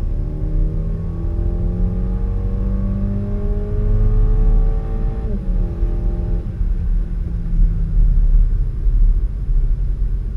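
Turbocharged 2.0 TFSI four-cylinder engine of a VW Golf 5 GTI running. Its revs climb steadily for about five seconds, drop suddenly, then hold steady over a deep rumble.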